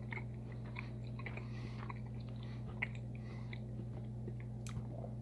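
A person chewing a mouthful of grilled sirloin steak, with scattered small wet mouth clicks, over a steady low hum.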